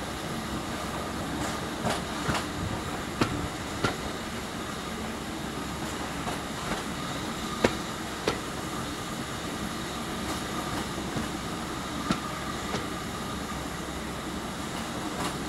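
Train running along the track, heard from an open carriage window: a steady rumble with a faint steady whine and irregular sharp clicks of the wheels over rail joints.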